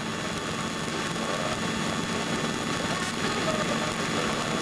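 Steady drone of a Cessna light aircraft's engine and propeller, heard inside the cabin.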